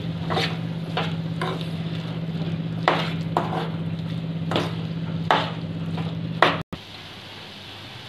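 Metal spatula stirring and scraping a thick masala paste with jackfruit seeds around a metal pan, about eight irregular scrapes over a steady low hum. The stirring stops abruptly about six and a half seconds in.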